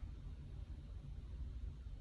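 Quiet room tone with a low, steady rumble and no key presses.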